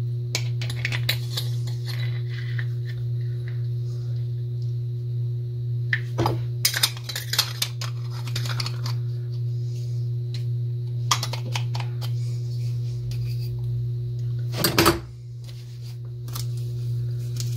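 Small metal clicks and rattles from a vintage Great Lakes Holiday 98 spincast fishing reel being handled and its front cover screwed on, in several short clusters over a steady low hum.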